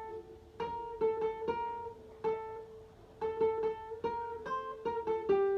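Guitar played one note at a time high on the neck, plucking the circus clown-tune melody: the same note struck repeatedly in short quick groups, then a few notes stepping higher near the end.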